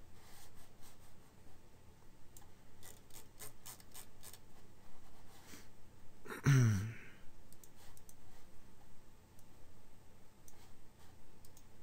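Computer mouse clicking: a quick run of clicks about 2.5 to 5 seconds in, then scattered single clicks. About 6.5 seconds in, a man makes a brief vocal sound that falls in pitch.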